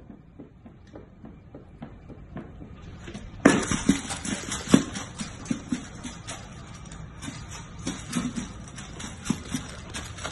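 Golden retriever puppy eating from a food bowl: a quick, irregular run of crunches and clinks against the bowl that starts about three and a half seconds in.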